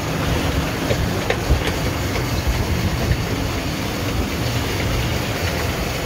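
Mercury outboard motor running steadily under way, a low engine drone under rushing water and wind noise, with a few light clicks about a second in.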